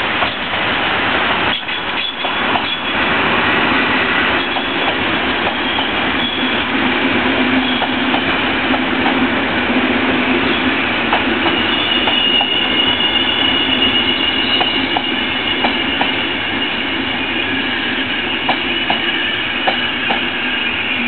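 Passenger coaches of a long-distance night train rolling past at speed: a steady wheel-and-rail rumble with scattered clicks over the rail joints. A high, steady wheel squeal sets in about halfway through.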